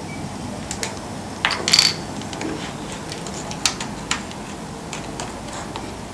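Small hard objects being handled on a desk: scattered clicks and taps, with a brief metallic clatter about a second and a half in and two sharper clicks a couple of seconds later.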